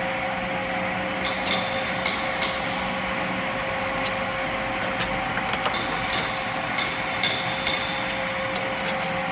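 Small fruit and vegetable washing machine running with a steady hum. Over it come scattered sharp clinks and knocks, irregularly spaced, each with a brief ringing tail.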